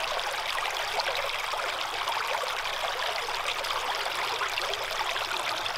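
River water rushing steadily through a gold prospecting sluice box, pouring over its riffles and matting.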